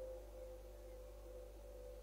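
A faint, steady humming tone with a weaker lower tone beside it and a low hum beneath. It is held without a break, and there are no calls or knocks.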